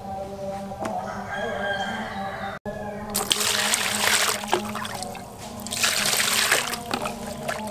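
A rooster crowing, then water pouring from above into a plastic basin onto a rack of pork ribs, in two loud pours.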